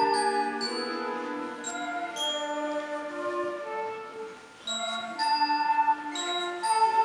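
School wind band playing, with held chords and high, struck notes ringing out over them. The music softens briefly about four and a half seconds in, then comes back louder.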